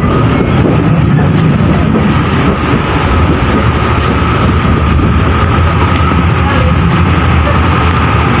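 Kahuripan passenger train running at speed, heard from inside the coach: a steady loud rumble and rattle of wheels on the track, with a steady high whine over it.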